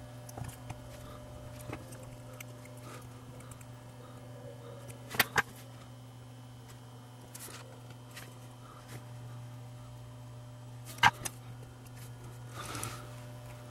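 A few small sharp clicks of tools on a workbench while tiny surface-mount resistors are placed and hand-soldered. There is a quick double click about five seconds in and another about eleven seconds in, over a steady low hum.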